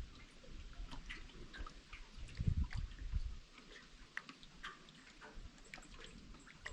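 Outdoor nature ambience: many short, scattered high ticks and chirps over a soft hiss, with a low rumble that swells about two and a half seconds in.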